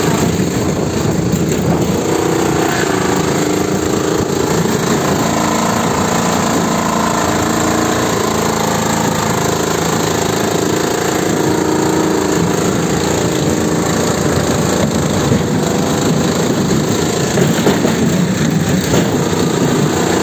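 Engine of a homemade tractor running loud and steady while the tractor is driven.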